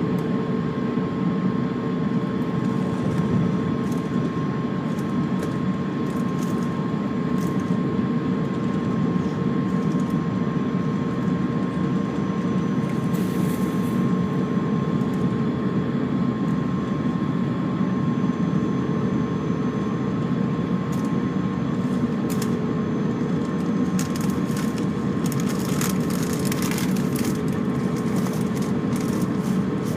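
Cabin noise inside an Airbus A350-900: a steady, even drone from its Rolls-Royce Trent XWB engines and the airflow, with a couple of steady hums over it. Light clicks and rattles come through now and then, most of them near the end.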